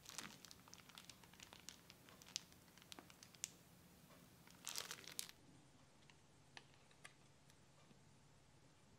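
Faint crinkling and small clicks of a plastic piping bag being squeezed as cream is piped, with a louder crinkly cluster about five seconds in.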